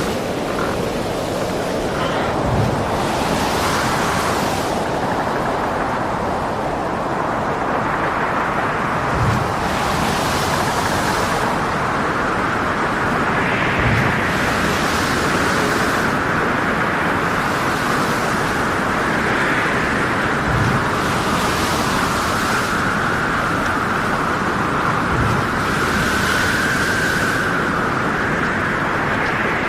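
Storm at sea: a steady roar of wind and heavy waves, with a whistling wind tone that wavers in pitch and rushes of spray coming every couple of seconds. A few low thuds land several seconds apart.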